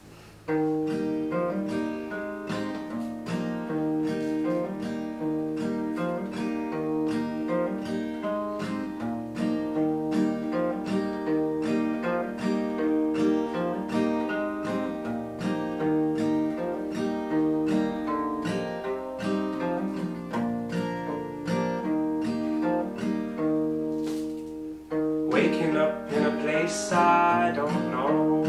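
Acoustic guitar played in a steady, repeating pattern, starting about half a second in. A man's voice comes in singing over it near the end.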